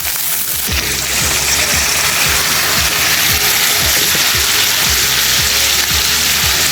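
Stream water rushing steadily, with background music that has a steady beat of about two strokes a second coming in just under a second in.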